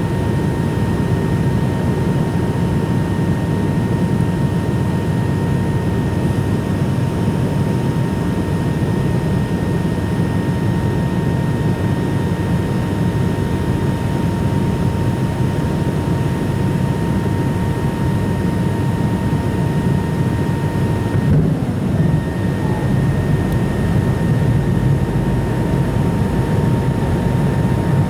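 Steady jet engine roar of a McDonnell Douglas MD-90 airliner, its IAE V2500 turbofans running with a steady high whine that drops out briefly about 21 seconds in.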